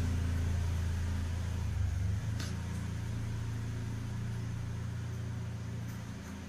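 Steady low mechanical hum, with one faint click about two and a half seconds in.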